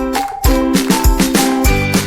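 Upbeat background music: plucked and struck melody notes over a steady kick-drum beat about twice a second.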